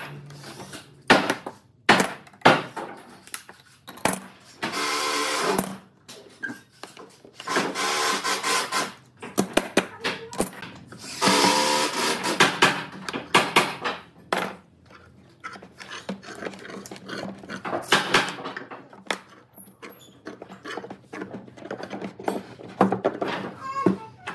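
Workbench handling sounds: sharp knocks and clatters of metal bar clamps and wooden blocks, broken by several scraping stretches of a second or two as a laminated wooden wheel rim is worked loose from its wooden form.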